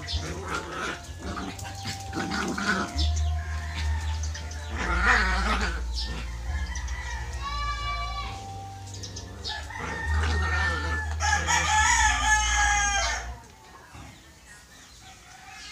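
A rooster crowing more than once over a low steady rumble. The loudest crow comes late and the sound drops off sharply near the end.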